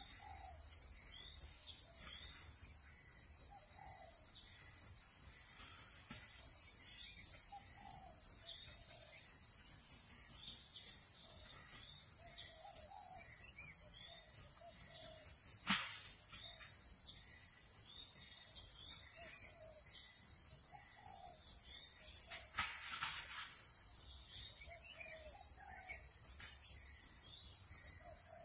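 Steady, high, pulsing chorus of jungle insects, with short low chirping calls repeating every second or two. A sharp click comes about halfway through, and a brief rustle a few seconds later.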